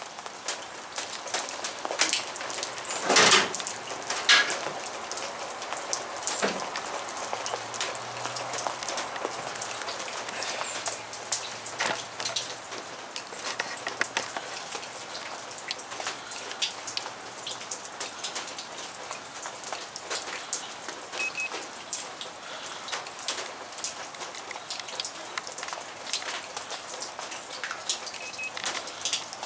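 Steady rain falling, with many small drops ticking sharply. Two louder knocks come about three and four seconds in.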